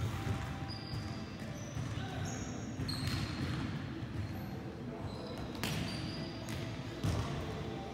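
Basketballs bouncing on a hardwood court in a large indoor gym, a few sharp thuds over a steady background hum, with short high squeaks.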